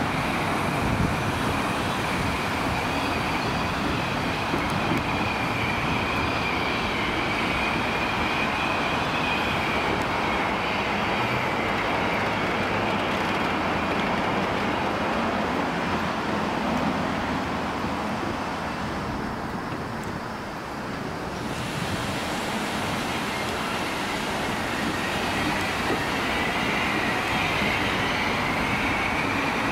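Vintage railway carriages rolling past on the track, their wheels running with a steady rumble and a wavering high squeal of the flanges. The sound dips briefly about two-thirds through.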